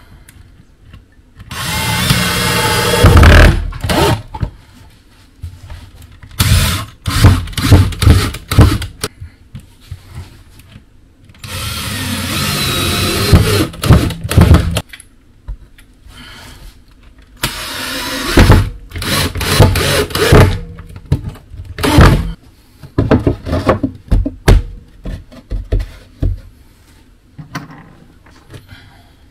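Cordless drill-driving screws into timber boards: two long runs of the motor that grow louder as they go, and several shorter spins, with sharp knocks and clicks of the wood and screws being handled between them.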